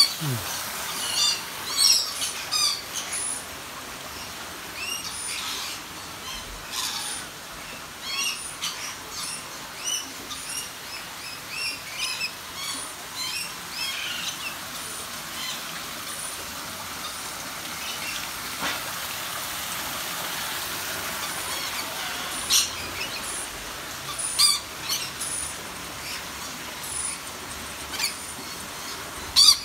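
Aviary birds, among them rainbow lorikeets, chirping and calling: many short, high chirps throughout, with a few louder shrill calls, several near the end.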